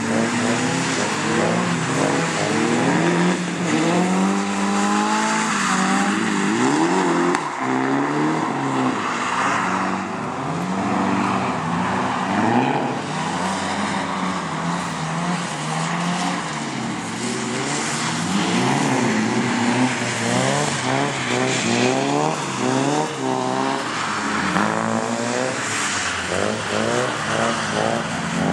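Nissan S-chassis drift cars (S14, 180SX, Sil80) drifting on wet asphalt. The engines rev up and down over and over as the cars hold their slides, with some tyre squeal.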